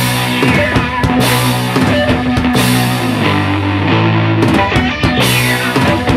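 Instrumental rock music in an angry mood, with guitar and a drum kit: sustained low guitar notes under steady drum hits.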